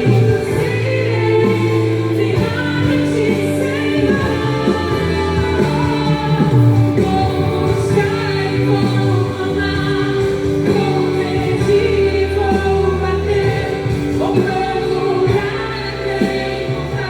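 Christian gospel song playing: sung vocals over a backing of held chords and a bass line.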